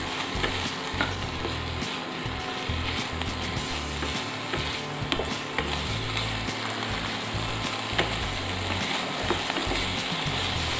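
Chicken pieces sizzling in a dry nonstick pan with no oil, stirred with a wooden spatula that knocks and scrapes against the pan now and then.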